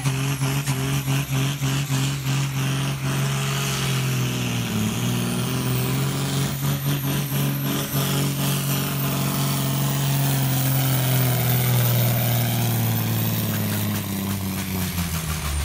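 A John Deere tractor's diesel engine working hard under full load while pulling a weight sled. Its steady, loud note drops in pitch over the last couple of seconds.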